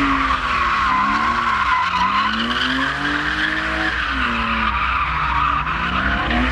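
A BMW E30 with a swapped M50-based straight-six engine drifting. The engine note rises and falls again and again as the throttle is worked, over a continuous squeal of the tyres sliding.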